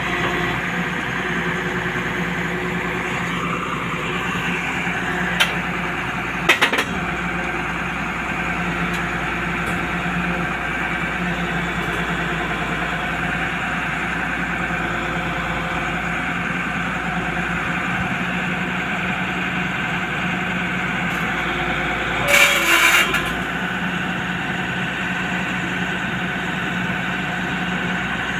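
Hyundai 350LR long-reach excavator's diesel engine running steadily with an even hum. Sharp knocks come about five and six and a half seconds in, and a short louder rattle about 22 seconds in.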